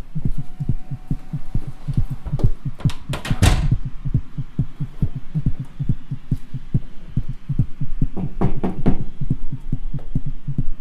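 Human beatboxing: a fast, driving pattern of deep bass pulses, about five a second, with bursts of sharp snare-like hits about three seconds in and again near the end.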